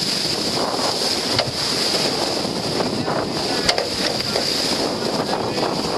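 Wind buffeting the microphone over water rushing by a boat under way at sea, with two sharp knocks, one about a second and a half in and one near the four-second mark.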